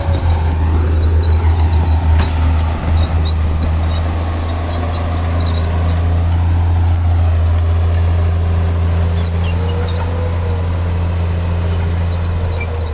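Heavy diesel engine of earthmoving machinery running under load with a deep, steady drone. It pulses unevenly in the first couple of seconds, and a fainter whine rises and falls near the end.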